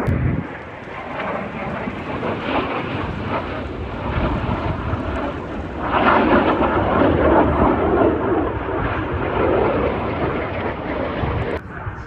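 Snowbirds' CT-114 Tutor jets passing over, a steady jet rumble that swells about halfway through and eases near the end.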